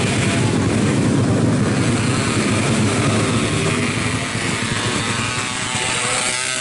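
Racing motorcycle engines running hard on a muddy dirt track, the sound easing a little in the second half as the bikes move away.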